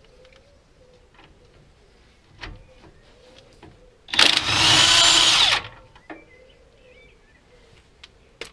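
Cordless DeWalt impact driver with a 19 mm socket undoing the top nut of the upper ball joint: one run of hammering of about a second and a half, starting about four seconds in. A few light knocks come before it.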